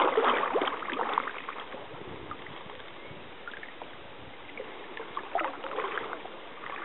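Water splashing and lapping against a canoe's hull on a moving river. It is loudest in the first second or so, then settles into steadier lapping with a few sharper splashes near the end.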